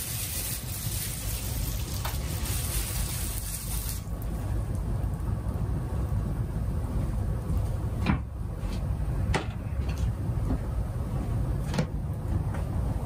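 Bubble wrap rustling and crackling as the sheet is spread out on a rug, stopping abruptly about four seconds in. A steady low rumble runs underneath, and a few sharp clicks follow later, about a second apart and then two seconds apart.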